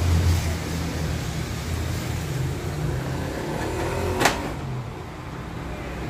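A steady low hum, with one sharp plastic click about four seconds in as the microwave's front control panel is handled and pressed back into place.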